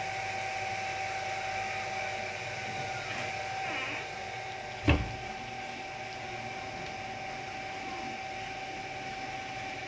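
A steady background hum with a constant thin tone, broken once about five seconds in by a single sharp thump.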